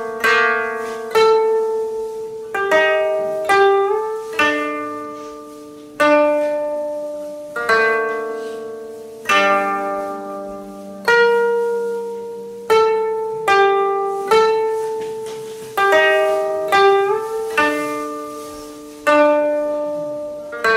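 Koto played slowly, a single note or a chord plucked about every second and left to ring and fade. A few notes are bent upward after the pluck.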